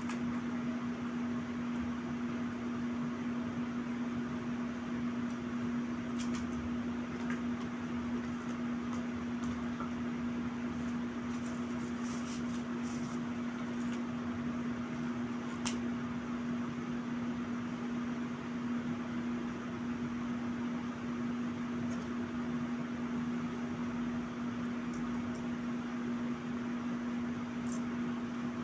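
A machine's steady hum, one unchanging low tone over a hiss, with a few faint clicks from food containers and chopsticks being handled.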